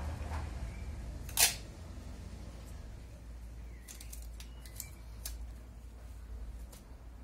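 Clear packing tape pulled briefly off its roll with one short, loud rasp about a second and a half in, then a few light clicks of scissors snipping the tape.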